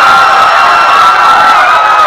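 A large crowd screaming and shouting in panic: a loud, unbroken din of many high-pitched voices.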